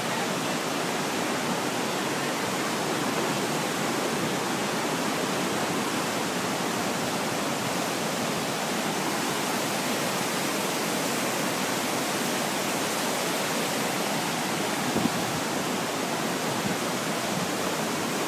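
Niagara River whitewater rapids: a steady, even rushing of water.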